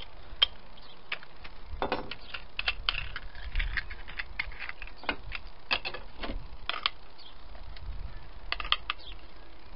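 Irregular light clicks and clatter of small metal tools being handled on a wooden workbench.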